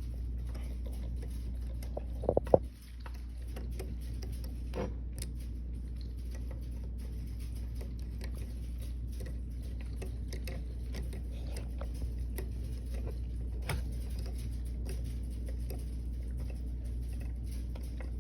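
Small clicks, taps and scratches of a driver and metal parts being handled as the thin screws holding a Holosun red-dot sight are driven into a pistol slide, with a few sharper knocks about two and a half seconds in. A steady low hum runs underneath.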